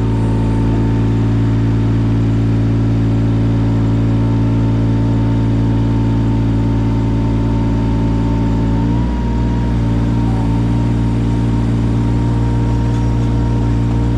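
Yanmar 017 mini excavator's diesel engine running at a steady speed, with a brief dip about nine seconds in.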